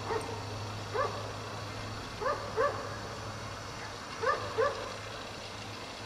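Dog barking: five short barks, one on its own and then two pairs, over a steady low hum.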